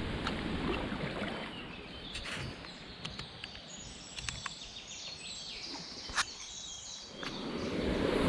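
Open river water noise around a stand-up paddleboard, with scattered sharp knocks, the loudest about six seconds in, and a few brief bird chirps. About seven seconds in, the rushing of white water over a river ramp rapid swells up and grows louder.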